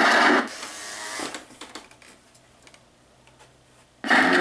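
Life-size Gemmy Dead Eye Drake animatronic pirate: its loud sound track through its speaker cuts off about half a second in. What follows is a faint mechanical whir and a few light clicks from its motor and linkage, then near silence, until the sound track starts again abruptly near the end.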